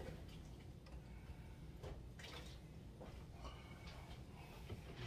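Faint, scattered light clicks and taps of kitchen items being handled and set down on a counter, over a low steady room background.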